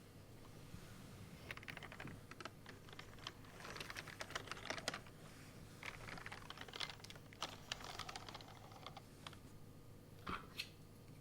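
Typing on an AppleDesign Keyboard with Alps slider-over-dome switches and PBT dye-sub keycaps: quick runs of clicking keystrokes starting about a second and a half in, with two louder strokes near the end.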